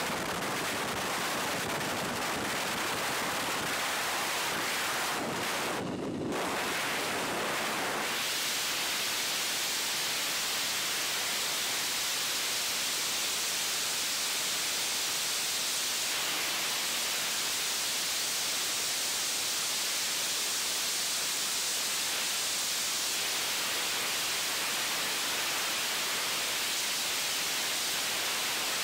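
Steady rushing wind on a skydiver's helmet camera during the aircraft exit and freefall. About eight seconds in, the rush turns higher and hissier and then holds steady.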